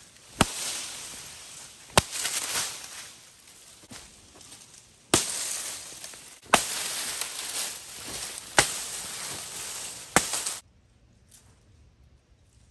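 A large chopping blade striking a green, leafy branch six times, each sharp chop followed by the leaves shaking and rustling. It goes almost silent after the last chop, about ten seconds in.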